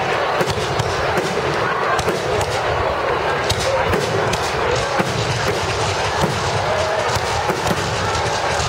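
Fireworks popping and crackling in many quick, sharp cracks, with a crowd talking underneath.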